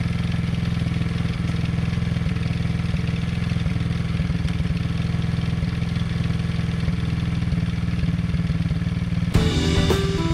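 Small single-cylinder four-stroke engine of a Tao Tao 110cc Coolster 3050c ATV running steadily at a low speed. Its carburettor is being tuned, with the fuel-air mixture screw taken from a half turn to a quarter turn out, to cure a stall coming off idle. Music comes in over it about nine seconds in.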